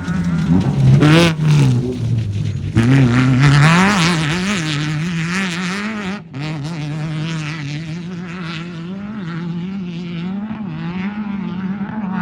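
Off-road race car engine running hard, its pitch rising and falling with the throttle. There is a sharp rev-up about a second in and a brief drop-off about halfway through.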